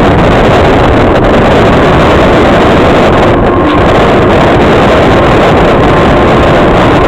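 Loud, steady wind rush on a wing-mounted camera of an RC plane in flight, with the plane's motor and propeller running underneath.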